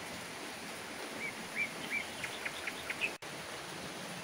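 Steady rain falling on garden foliage, an even hiss. A bird gives a quick run of short chirps from about one second in to about three seconds in, and the sound cuts out for an instant just after that.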